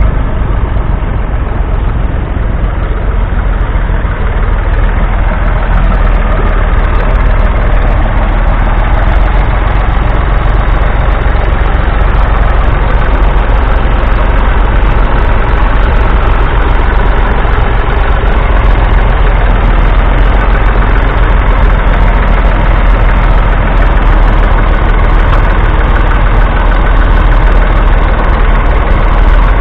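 Massey Ferguson 135's 2.5-litre three-cylinder diesel engine running steadily under load as the tractor pulls a two-furrow mounted plough through stubble.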